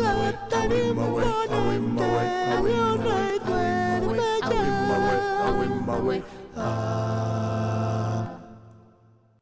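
Small vocal group singing a cappella in harmony, the voices moving note by note, then holding one chord that dies away near the end.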